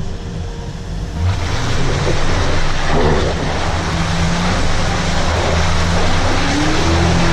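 An off-road vehicle's engine running under load, with a loud steady rush of noise over it; the engine's pitch climbs slowly near the end.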